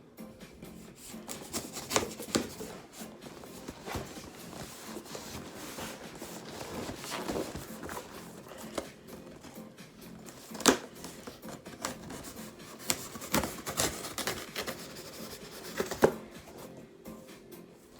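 Knife blade cutting through packing tape and cardboard on a shipping box: irregular scraping and slicing with a few sharp knocks, the loudest about 11 and 16 seconds in.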